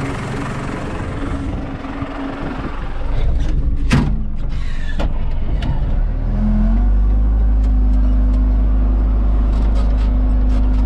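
John Deere 3200 telehandler's diesel engine running, heard from inside the cab, with a loud knock about four seconds in. At about six seconds the engine revs up and holds at a steady, higher speed while the machine carries a round bale.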